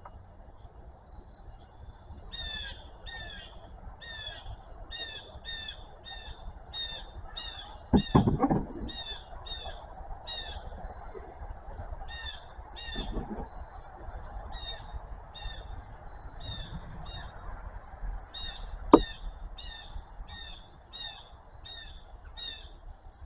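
A bird repeats a short, high call about twice a second, over and over. A loud thump comes about 8 seconds in, and a sharp click near the end.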